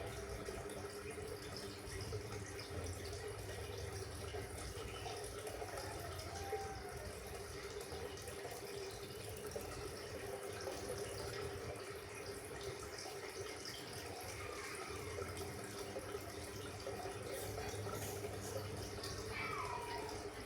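Steady running or splashing water with a low steady hum underneath, even throughout.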